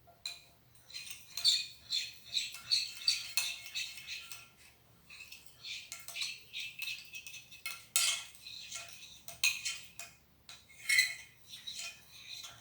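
A utensil scraping and clicking against a container while stirring a thick mix of glue, paint and lotion for slime, in uneven strokes.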